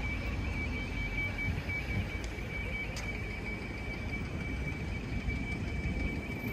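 Street ambience: an even low background rumble with a thin, steady high-pitched tone running throughout and a few faint clicks.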